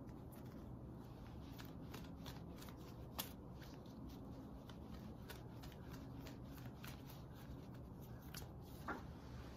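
A deck of cards shuffled in the hands: a quiet run of soft riffling clicks as the cards slide and tap against each other, with a sharper snap about three seconds in and another near the end.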